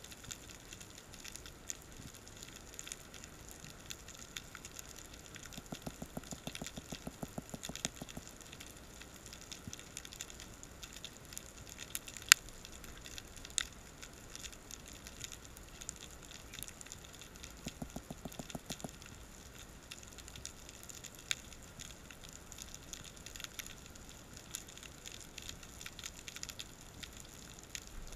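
Underwater crackling with scattered sharp clicks, typical of snapping shrimp on a rocky reef, heard through a camera housing. One loud click comes about twelve seconds in. Twice there is a short stretch of rapid low pulsing.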